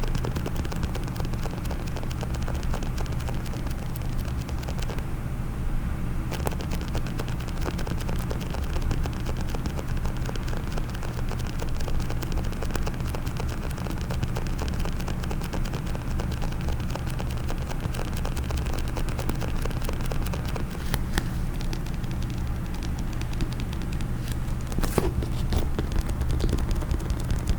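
Fast, continuous tapping and scratching on a case: a dense patter of small clicks, with a few sharper taps near the end.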